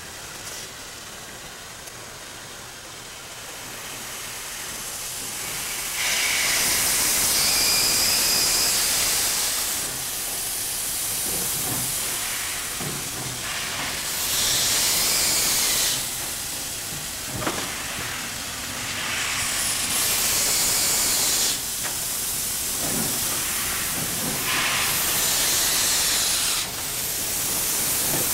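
Alco Tipo 70 steam locomotive No. 714 blowing steam from its open cylinder cocks as it moves slowly, in loud hissing spells of a couple of seconds each that start and stop suddenly, beginning about six seconds in. A few short knocks come between the spells.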